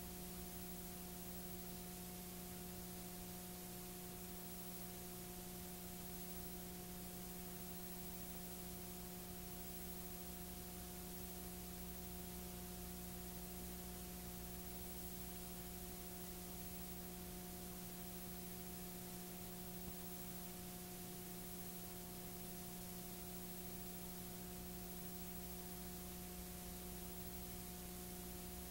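Steady electrical hum with hiss on top, unchanging and with no other sound: the empty audio track of a blank stretch of videotape.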